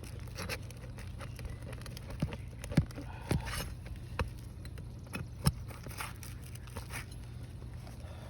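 Handwork on asphalt roof shingles: scattered light taps, crackles and scrapes, with two sharper knocks a little under three seconds and about five and a half seconds in, over a steady low rumble.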